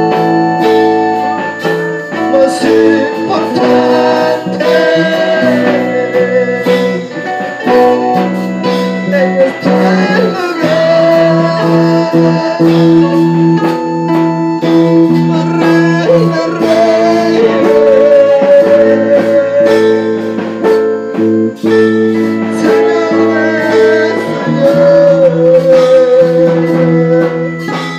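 Live worship band playing a slow song: held keyboard chords and bass with drums, and a singing voice carrying a wavering melody over them.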